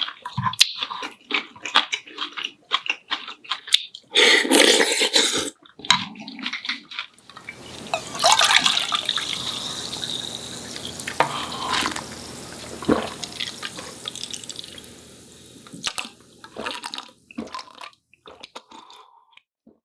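Eating noises of short clicks and chewing, then from about eight seconds in a run of steady running water with a few clinks, like a tap running into a sink, which fades out near the end.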